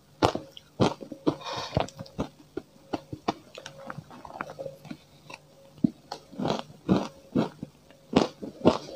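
Close-miked eating of matcha-powdered ice: a metal spoon scrapes and scoops in the container, followed by short crunchy bites and steady chewing, about two to three chews a second near the end.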